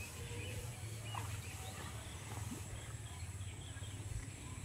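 Scattered short bird calls, likely domestic fowl, over a steady low background hum.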